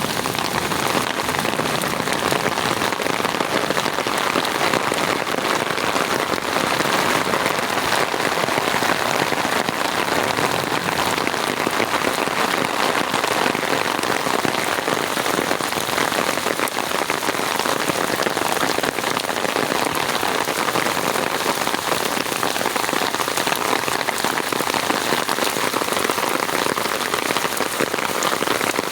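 Steady rain falling, a dense even hiss of many drops that keeps up without a break.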